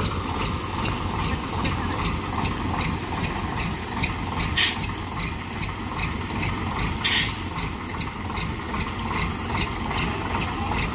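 Mitsubishi Fuso truck's diesel engine running as the truck pulls slowly forward, with two short hisses, about four and a half and seven seconds in, and a faint, fast, even ticking throughout.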